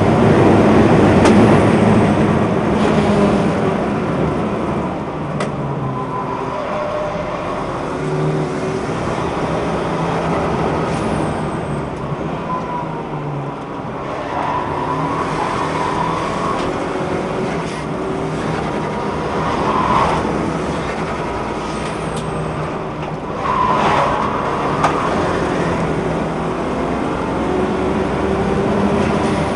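Track car's engine heard from on board at speed, its pitch rising and falling again and again through gear changes and corners, over steady road and wind noise.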